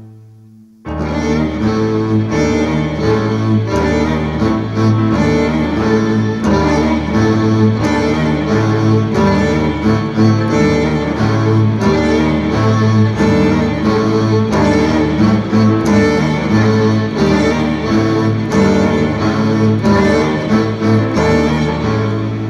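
Dark, slow neoclassical chamber-doom music: bowed strings, cello and violin, over a heavy low line that steps slowly between notes. The full ensemble comes in suddenly and loud about a second in, after a brief lull.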